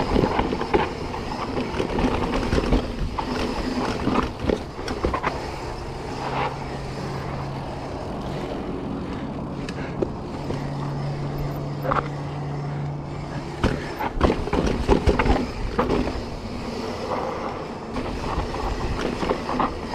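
A 2021 Specialized Stumpjumper Evo mountain bike rolling down a rocky sandstone and dirt trail. There is steady tyre rumble with frequent knocks and rattles as the bike goes over the rocks, and a steady low hum for several seconds in the middle.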